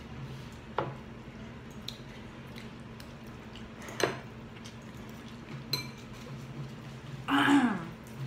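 Metal forks clinking against glass bowls of noodles, with sharp clicks about a second in and again about four seconds in, amid eating and slurping of noodles. Near the end, a short voice sound falling in pitch is the loudest thing.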